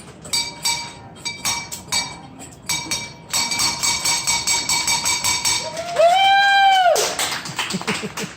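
End-of-chemotherapy 'bell of hope' rung by hand, struck a few times a second and then rung rapidly for a couple of seconds. Near the end comes a loud whoop, the loudest sound, followed by applause.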